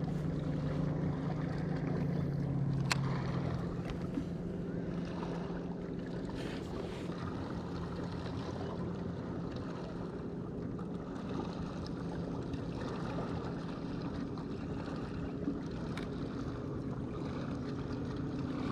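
A small fishing boat's electric trolling motor gives a steady low hum, stronger for the first three seconds, over wind and water noise. A couple of light, sharp clicks come about three seconds in and again near the end.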